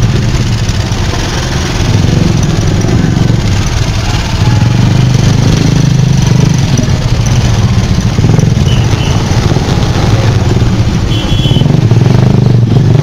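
Motorbike engine running at low speed in heavy street traffic, heard from the bike, mixed with the engines of surrounding motorcycles, tricycles and cars: a loud, steady low rumble. A brief high tone sounds about eleven seconds in.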